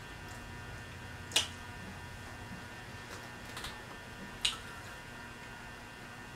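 Chewing pizza with sharp mouth smacks, two loud ones about a second and a half and four and a half seconds in and a softer one between, over a faint steady electrical hum.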